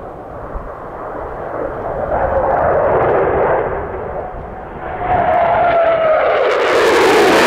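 Low-flying F-15 Eagle fighter jets passing: jet engine roar that swells, eases, then builds again with a falling whine, growing into a loud roar near the end.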